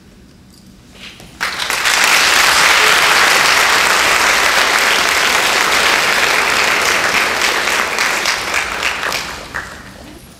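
Audience applauding, starting suddenly about a second and a half in, holding steady, then dying away near the end.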